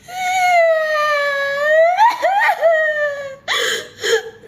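A high-pitched voice crying in a long, drawn-out 'uwaaah' wail that slowly falls in pitch, breaks into sobbing wobbles about two seconds in and trails off. Two short gasping sobs follow near the end.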